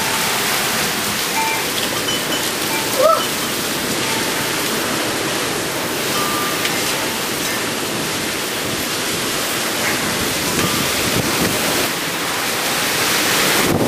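Heavy thunderstorm rain pouring down steadily, driven by strong wind. Near the end the wind grows louder and buffets the microphone.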